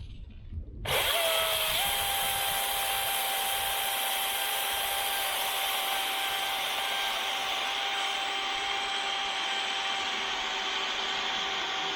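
DeWalt 60V FlexVolt brushless battery chainsaw running at full throttle: it spins up about a second in, its whine rising a little, then holds a steady high-pitched whine.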